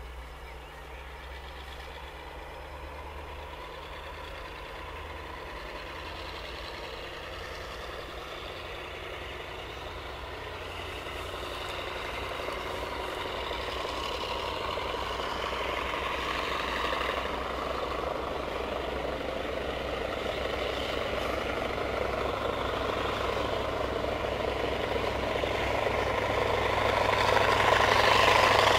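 Diesel-hydraulic locomotive hauling a passenger train toward the listener, its engine working hard and growing steadily louder as it approaches, with a deep steady note coming up strongest near the end.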